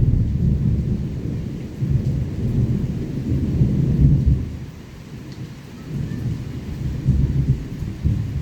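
Thunder rumbling in rolling waves, easing off about halfway through and building again, over steady rain.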